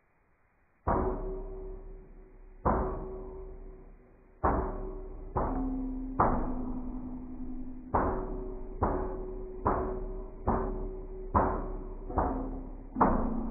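Glass beer bottles struck with a stick, slowed to one-sixth speed: about a dozen sharp hits starting about a second in, each ringing on and dying away slowly, with a low ringing tone that switches pitch between bottles.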